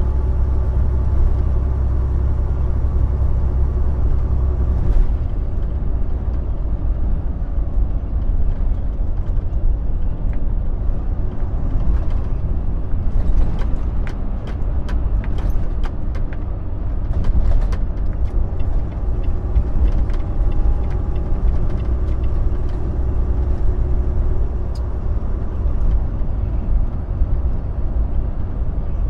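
Inside a Volvo semi-truck's cab at highway speed: a steady low rumble of the diesel engine and road noise, with a few short clicks about halfway through.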